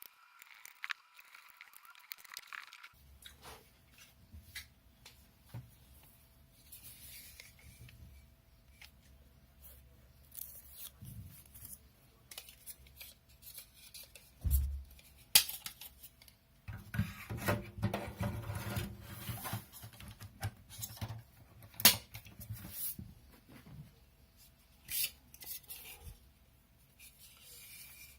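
Hard metal and plastic parts of a NAS being handled, with irregular clicks, knocks and scraping rubs. A few sharp clicks stand out, and the loudest rubbing comes about two-thirds of the way through. A faint steady hum runs underneath.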